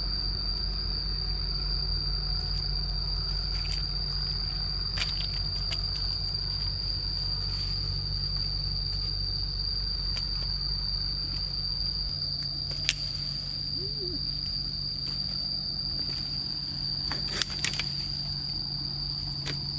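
A steady, high-pitched insect drone over a low background hum, broken by a few brief snaps or rustles.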